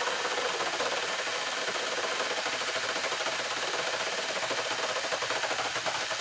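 Cordless angle grinder driving a bolt-on chainsaw attachment, its chain cutting through a 2x4 in a steady, fast rattle. The grinder is a cheap, underpowered budget model that stalls easily, and it is running on its low setting.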